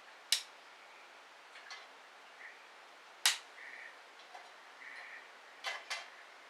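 Wood fire burning in a Solo Stove, crackling with sharp, loud pops of burning wood: one soon after the start, another about three seconds in, a quick pair near the end, and smaller crackles between over a faint hiss.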